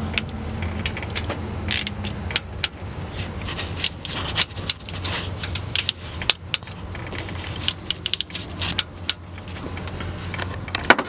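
A torque wrench and socket extension clicking and clinking against metal in irregular sharp ticks as the camshaft retainer plate bolts on a 5.3 L LS engine are tightened to 18 lb-ft, over a steady low hum.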